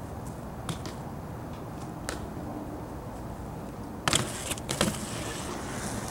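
BMX bike riding on pavement: a steady low rolling rumble with a few light clicks, then louder clattering scrapes and knocks about four seconds in.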